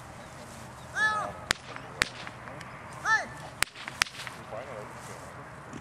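A training whip cracks sharply four times, in two pairs about half a second apart. A short, loud cry comes just before each pair.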